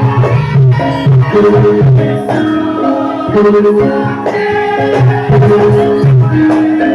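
Traditional Javanese mask-dance accompaniment: drums keeping a steady rhythm under repeating, held melodic notes from pitched instruments.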